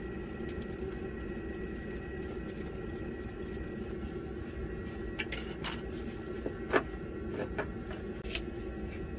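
A kitchen knife tapping and clicking against a plate and countertop as an apple is cut and the knife is laid down, a handful of sharp clicks in the second half with one louder knock near the end. Underneath, a steady low hum continues.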